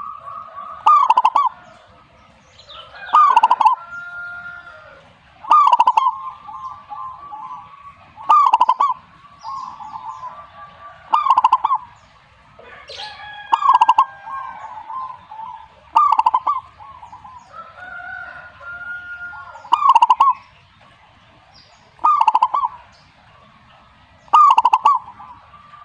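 Zebra dove (perkutut) calling: a loud coo repeats about every two and a half seconds, with softer calls from other birds in between.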